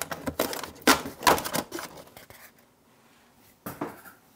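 Cardboard box and crumpled brown packing paper being handled: a run of rustles and knocks over the first two seconds, a quiet spell, then another short rustle near the end.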